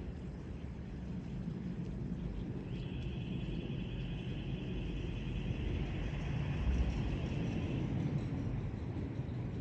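Distant rumble of a British Airways Airbus A380's four jet engines passing low overhead, swelling slightly past the middle. A steady high-pitched hiss runs from about three seconds in to about eight seconds in.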